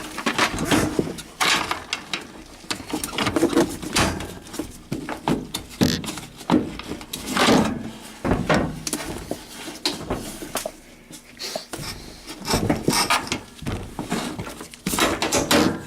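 Irregular clattering, knocks and metallic clicks as the drum of a Kenmore front-loading washer is lifted and a suspension spring with a makeshift metal clip is worked onto its mount, to rehang the drum on a broken spring.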